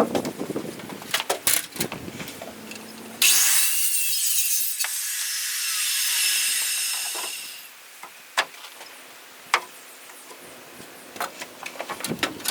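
A saw cutting through framing lumber: a hissing cut starts abruptly about three seconds in and dies away some four seconds later, with scattered knocks and taps of framing work before and after it.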